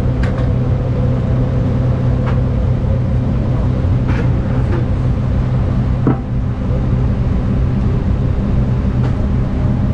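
Fishing boat's engine running steadily, a constant low drone, with a few faint clicks and knocks on top.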